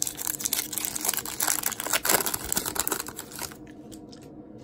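Foil wrapper of a hockey card pack crinkling and crackling as it is torn open by hand. The dense crackle lasts about three and a half seconds, then stops.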